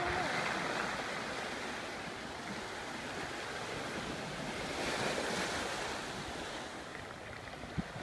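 Small sea waves breaking and washing up a pebble beach, swelling about a second in and again around five seconds in. Wind hits the microphone once near the end.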